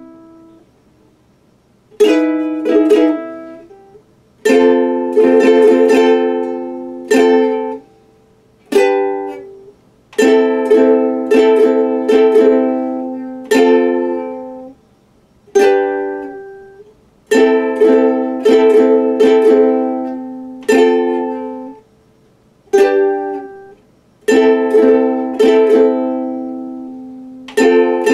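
A small plucked string instrument strumming chords slowly, each chord left to ring and fade, in short phrases separated by brief pauses. No singing.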